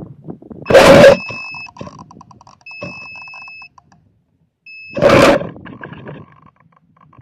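Two loud rushes of wind buffeting the microphone of a 360 camera payload coming down from a rocket, one about a second in and one about five seconds in. Between them, a high electronic beep sounds in two long steady tones, each about a second, with a short one just before the second rush.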